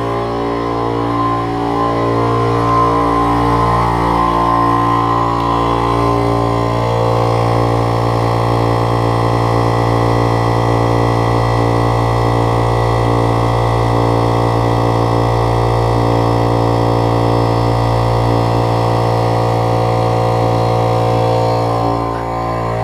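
Small electric air compressor running steadily with an even motor hum.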